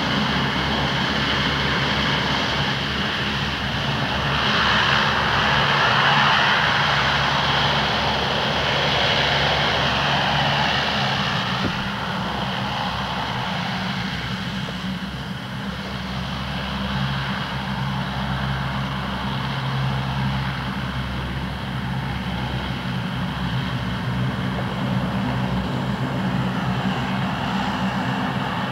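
Swedish Air Force C-130 Hercules's four Allison T56 turboprops on the landing roll. A loud rushing roar swells for several seconds while the propellers are reversed to brake, then eases at about twelve seconds to a steadier propeller drone as the aircraft slows.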